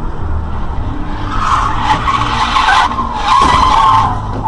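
Car tyres skidding: two screeches, the first starting about a second and a half in and the second, louder one about three seconds in, over a steady low rumble of road and engine noise.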